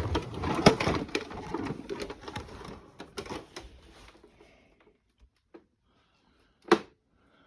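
The hollow plastic body of a large 1:6 scale remote control car being handled and turned over. It gives a quick run of clicks and knocks that dies away after about four seconds, then a single sharp knock near the end.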